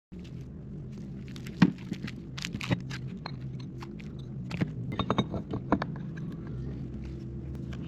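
Small metal clicks and clinks of engine parts being handled, pistons among them, with a sharp knock about one and a half seconds in and a run of clicks a few seconds later, over a steady low hum.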